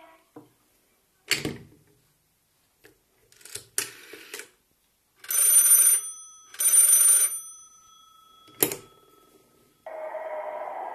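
Old rotary-dial telephone with the handset clacking onto its cradle, then the phone ringing twice in short bursts whose tone rings on for about a second afterwards. Near the end the handset is lifted with a sharp clack and a tune starts playing from the phone.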